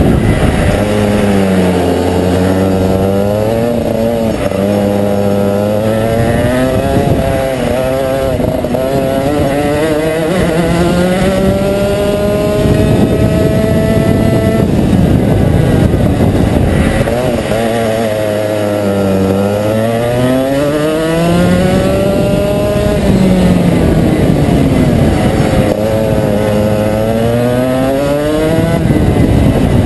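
Rotax 125cc single-cylinder two-stroke kart engine heard onboard at racing speed. The revs drop sharply into each corner, hold low for a few seconds, then climb in long steady rising pulls on the straights, a cycle that repeats several times.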